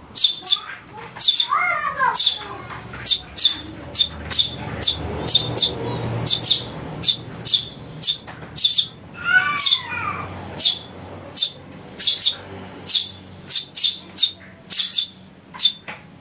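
Eurasian tree sparrow chicks calling: a steady run of short, sharp, high chirps, about two to three a second. Twice a lower call falls in pitch.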